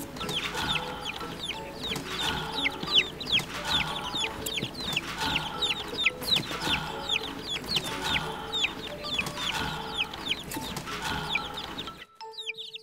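Several newly hatched chicks peeping continuously, a rapid overlapping stream of high, falling cheeps, over background music. The peeping cuts off suddenly near the end, leaving only the music.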